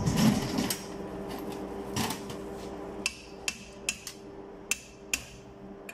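Sharp, ringing metal-on-metal taps, about two or three a second from about three seconds in, as the lock nut on a globe valve's stem is knocked tight. A heavier knock comes at the start and a clank about two seconds in, over a steady hum.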